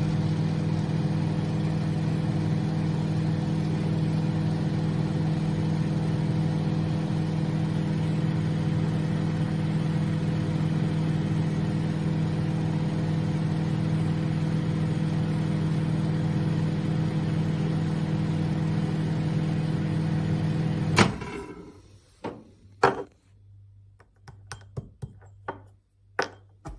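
Sharp YC-QG254AU-B flatbed microwave oven running with a steady hum for about twenty seconds, then cutting off with a click, followed by a few short clicks.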